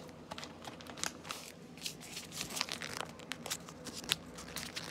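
A many-times-folded sheet of lined notebook paper being folded and pressed into a new crease, with irregular crinkling and crackling.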